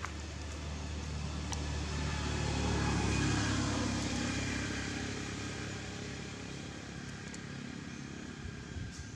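A motor vehicle passing by, its engine hum growing louder to a peak about three seconds in and then fading away.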